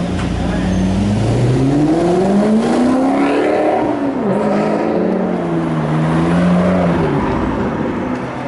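A car engine accelerating, its pitch rising over the first few seconds, then holding fairly steady and easing off near the end.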